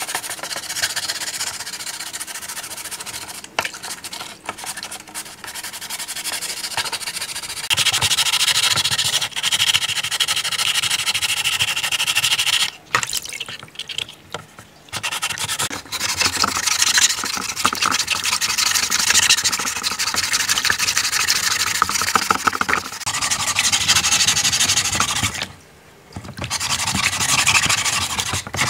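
A sponge and hands scrubbing a wet rifle body in a basin of water: a steady scratchy rubbing that stops briefly a few times.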